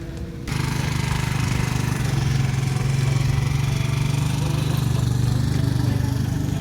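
A small motor running steadily with a constant hum. It starts abruptly about half a second in.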